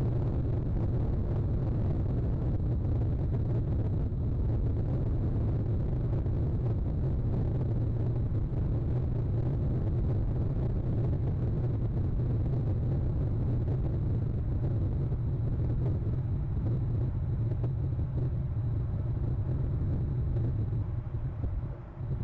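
Steady low rumbling noise with no distinct events, easing off briefly near the end.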